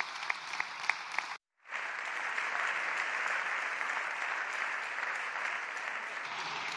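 Applause from a chamber full of parliamentary deputies, with one nearby clapper's claps standing out at about three a second. The sound cuts out briefly about a second and a half in, then returns as steady, dense applause.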